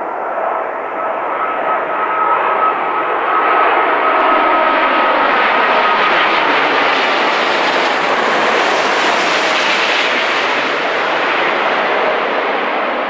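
Airbus A380-841's four Rolls-Royce Trent 970 turbofans at approach power as the airliner passes low overhead with its landing gear down. A thin whine sits over the engine noise at first and fades out. The engine noise grows to its loudest as the plane passes overhead, then eases off near the end as it moves away.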